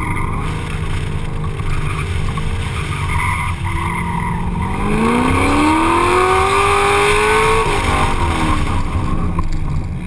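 Corvette C6 Z06's 7.0-litre LS7 V8, heard from inside the open-windowed cabin during an autocross run. It runs at low revs with the pitch wavering for the first few seconds. About five seconds in it climbs steadily under hard acceleration, then drops sharply near eight seconds as the driver comes off the throttle and falls away.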